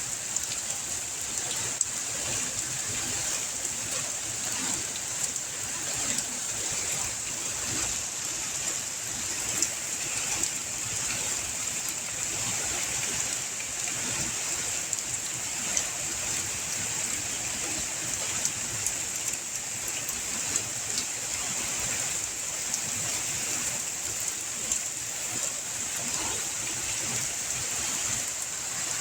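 Steady rain falling: a continuous even hiss with many scattered drop ticks throughout.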